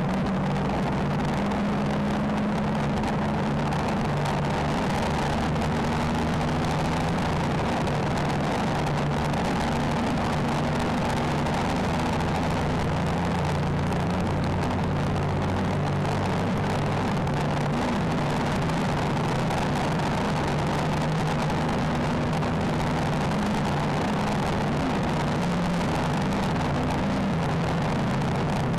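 Steady wind and road noise from a Triumph Trophy 1215 touring motorcycle cruising at about 70 mph, heard through its dash cam's microphone, with the engine's low hum beneath the rushing.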